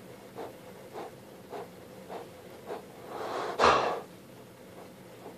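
Beagle-type dog breathing hard and fast, short breaths a little under two a second, with one louder, longer rush of breath about three and a half seconds in. The laboured breathing belongs to a dog in distress after vomiting, which the owner blames on a dog treat.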